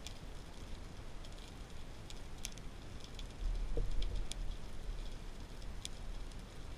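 Underwater ambience: scattered sharp clicks and crackles over a steady low rumble, with a louder low thump about three and a half seconds in.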